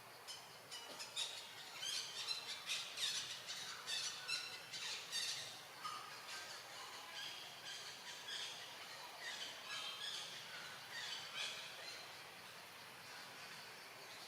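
A rapid run of short, high-pitched squeals and chirps from animals, densest in the first few seconds, then thinning out to scattered calls.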